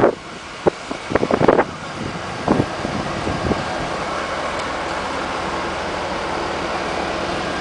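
Steady running noise of a fire engine close by, with a few brief louder noises in the first three seconds.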